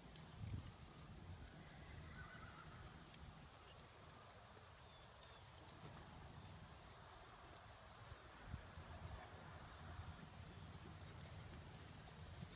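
Near silence: faint outdoor ambience under a steady, high, pulsing insect chorus, with a soft low thump about half a second in.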